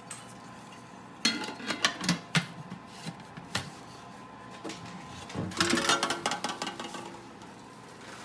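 Clinks and light clatter of the metal parts of an old stainless-steel seed-packing hopper being handled and fitted together, a flat ring set onto its rim and pressed into place. Scattered knocks come between about one and two and a half seconds in, and a longer run of clatter from about five and a half to seven seconds.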